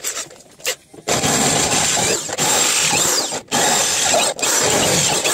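Erbauer electric drill boring into a metal plate. A few clicks, then about a second in the drill starts and runs loud with a grinding cutting noise, stopping briefly three times before it runs on to the end.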